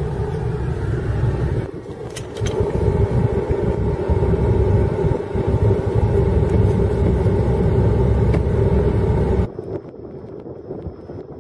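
A motor vehicle's engine running with a steady rumble and hum. It cuts off abruptly about nine and a half seconds in, leaving quieter wind noise.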